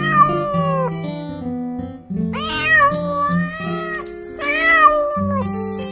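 Cartoon kitten meowing three times, each meow long and drawn out, over a children's song backing track.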